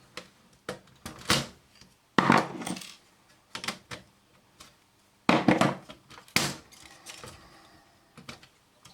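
Metal parts of a satellite set-top box being handled and worked loose by hand, giving irregular clinks, clicks and knocks. The strongest knocks come about two, five and six seconds in.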